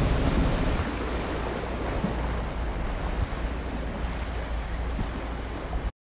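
Boat's engine running with a steady low rumble under the rush of water from its wake and wind on the microphone. The sound cuts off suddenly at the very end.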